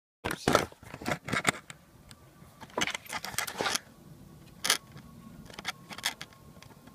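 Handling noise of a phone camera being carried and set in place: a string of knocks, rubs and clicks in clusters, with one sharper knock a little past the middle.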